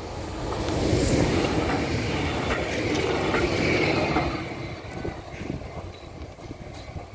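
A vehicle passing over a railway level crossing. The sound swells about a second in, stays loud for around three seconds, then fades, with a few sharp clicks along the way.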